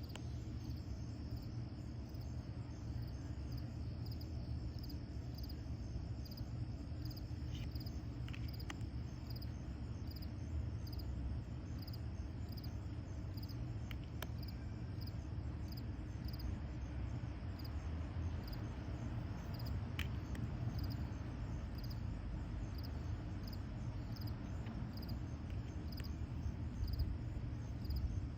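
Steady low background rumble, with a faint high chirp repeating evenly a little more than once a second and a few soft clicks.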